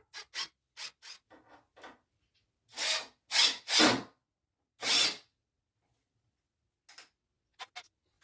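Wood being worked with a hand tool: a few short scrapes, then four longer rasping strokes, the loudest part, followed by a few light clicks near the end.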